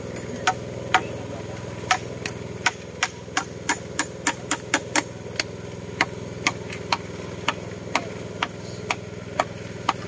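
Sharp, short knocks, irregular at about two to three a second, like hammering, over the steady hum of an idling engine.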